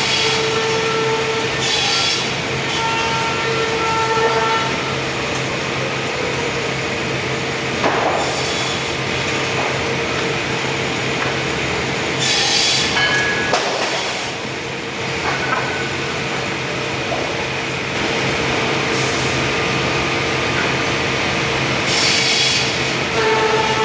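Sawmill machinery cutting albasia timber runs steadily, with a saw's steady whining tone and short hissing bursts about four times as the blade works through the wood.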